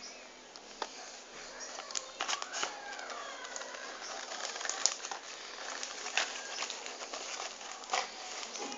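Close handling of product packaging: scattered sharp clicks, taps and crinkles, busiest in the middle and again near the end.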